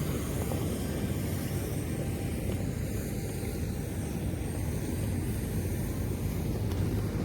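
Airliner noise on the apron: a steady low rumble with a faint, thin high whine above it, unchanging throughout.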